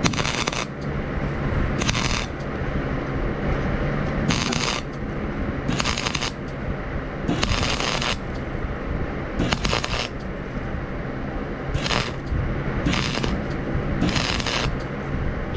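Arc welding on a steel rake: a continuous crackling sizzle from the welding arc over a steady low hum, flaring into a louder hiss about every second or so as metal is laid in to fill and bridge the broken gaps.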